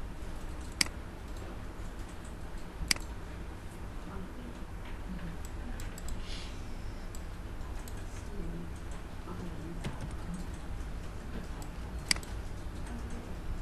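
Computer mouse clicks and keyboard keystrokes. Three sharp clicks stand out several seconds apart, with fainter taps between them, over a steady low background rumble.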